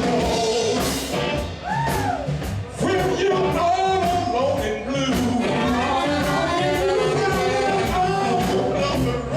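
A live band playing a rock-blues number: a singer's voice over a band with a steady drum beat.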